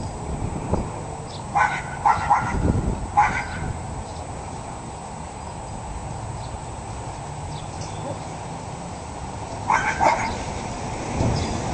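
Cairn terrier barking: four short, sharp barks in quick succession, then a quiet stretch and two more barks near the end.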